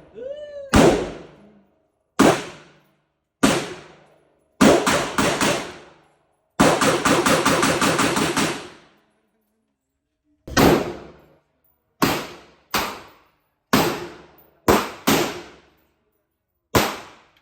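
Gunfire: single shots with pauses between them, a quick string of shots about five seconds in, then a rapid burst lasting about two seconds, then more single shots spaced about a second apart.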